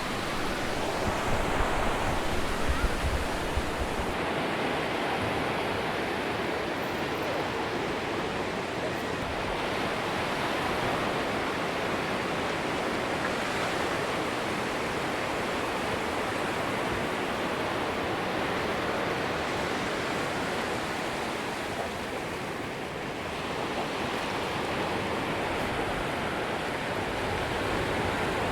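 Atlantic surf washing onto a sandy beach: a steady wash of wave noise that swells and eases gently, with a low rumble in the first few seconds.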